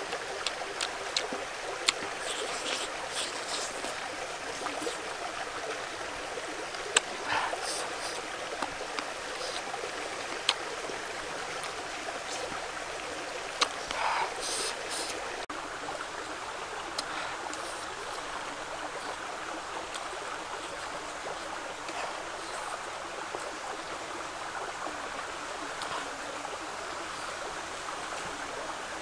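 Steady rushing of a small river, with short eating smacks and clicks from chewing mixed in over the first half.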